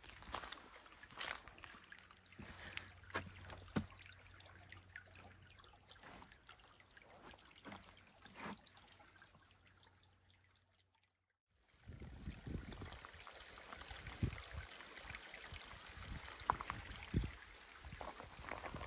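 Faint trickling of a small creek, with scattered light knocks in the first half and a brief break about eleven seconds in.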